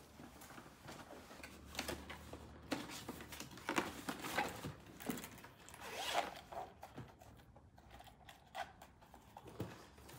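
Unpacking noises: packaging being handled and the zipper of an Oakley sunglasses case being pulled open in short, irregular strokes.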